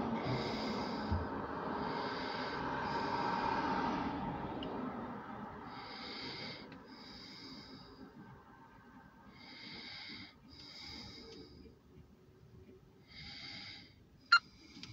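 Breathing close to the microphone: short breaths in and out through the nose, in pairs every few seconds. Under the first few breaths a low rumble dies away over about four seconds. A sharp click comes near the end.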